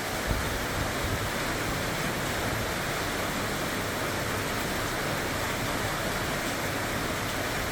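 Steady rushing water noise, even and unbroken, with no swells or breaks.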